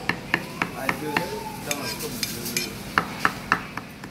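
A cleaver chops red chilies on a thick round wooden chopping board in quick, even knocks, about four a second. The chopping pauses briefly about a second in, then resumes.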